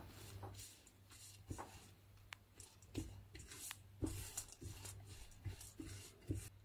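Silicone spatula stirring and scraping sliced almonds around a dry nonstick frying pan, with faint irregular scrapes and light knocks against the pan.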